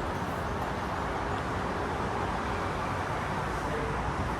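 Steady vehicle noise: an even, continuous background with no distinct events.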